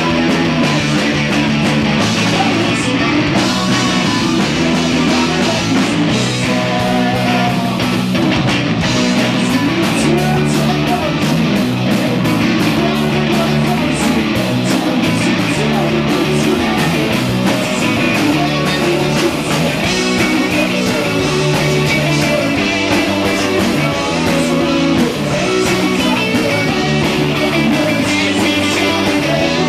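Live rock band playing loud and without a break: electric guitar over bass and drums.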